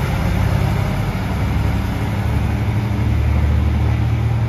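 Diesel engine of a JR Shikoku 1000-series railcar pulling away from the station: a steady low drone that grows stronger about halfway through as the railcar moves off under power.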